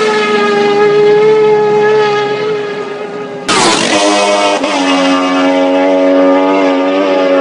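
Road-racing motorcycles at full throttle going past at high speed. One engine holds a high, steady note, then about three and a half seconds in another machine bursts past with a sudden jump in loudness, its pitch dropping as it goes away.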